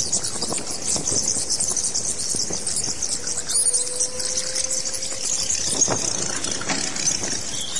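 Bats squeaking and chattering: a dense, continuous high-pitched twittering of many calls.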